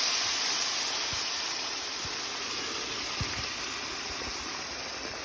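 Loud sizzling hiss of pressure-cooked beef tripe and its cooking liquid in a hot pan of oil, onions and spice masala, slowly dying down.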